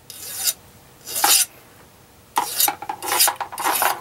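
Flat hand file rasping across the end of a 1/8-inch brass rod, rounding off (radiusing) the cut end. About five separate strokes, the last three coming closer together.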